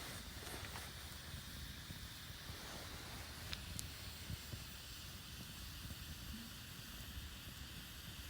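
Campfire burning with a steady soft hiss and low rumble, and one or two faint crackles.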